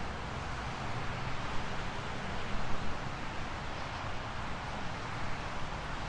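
Steady outdoor background noise: an even hiss over a low rumble, with no siren tone sounding.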